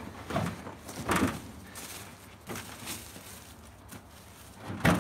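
Ash firewood rounds knocking and thudding against each other and the pickup's bed as they are pulled out and handled: a few separate knocks, the loudest near the end.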